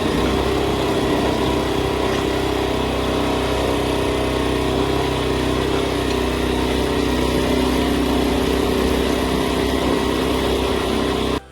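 Small gasoline engine of a Harbor Freight backhoe running steadily under power while digging a trench; it cuts off suddenly near the end.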